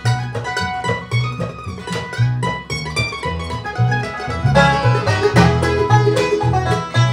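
Bluegrass band playing: a mandolin picks quick runs over acoustic guitar, banjo and an upright bass keeping a steady beat.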